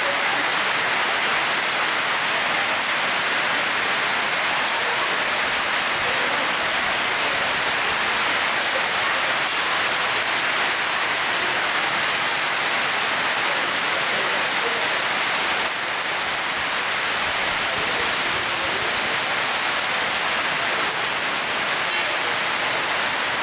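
Hail mixed with heavy rain pelting a paved courtyard and roofs: a dense, steady hiss of countless small impacts, easing slightly about two-thirds of the way through.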